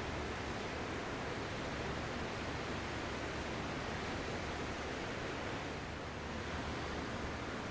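Ocean surf: a steady, even wash of waves with no distinct breaking crests, easing slightly about six seconds in.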